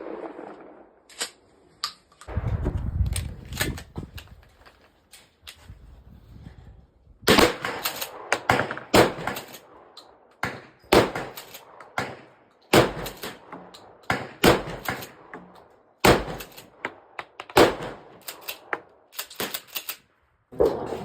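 Gunshots at an outdoor range, each a sharp crack with a short echo. A few fainter shots come early, then from about seven seconds in a steady string of shots follows, roughly one every half-second to second.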